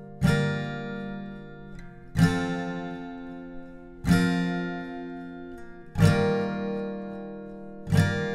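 Background music: acoustic guitar chords strummed about every two seconds, each chord left to ring out and fade before the next.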